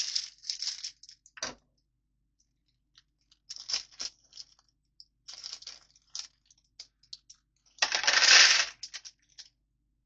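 Small plastic Lego pieces clicking and clattering as a parts bag is handled, with a louder rattle of pieces and bag lasting about a second near the end.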